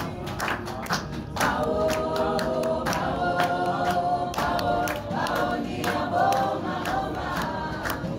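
Small mixed church choir singing together, with steady rhythmic hand clapping, about two to three claps a second.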